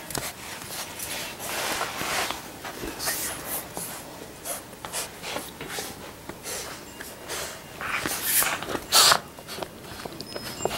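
Five-week-old Labrador Retriever puppies mouthing and tugging at plush toys, with irregular short sniffs and noisy breaths through the nose and the rustle of the fabric toys; one louder burst comes about nine seconds in.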